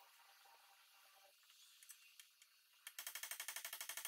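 Faint shop room tone with a few light handling clicks. About three seconds in comes a rapid run of sharp, even clicks, about a dozen a second, for just over a second: a hand ratchet wrench being swung.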